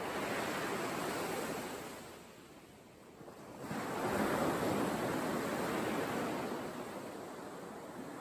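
Surf washing onto a sandy beach: two surges of wave noise with a lull around three seconds in, the second surge the louder.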